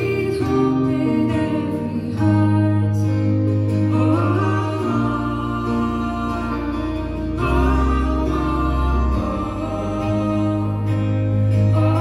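Live folk song: singing over long held drone notes and a plucked small guitar, the sung lines swelling in a few times.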